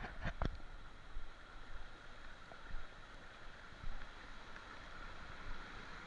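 Steady rushing of a waterfall and a shallow rocky stream in a narrow gorge, an even hiss of water. A few sharp clicks come in the first half-second, and low bumps now and then.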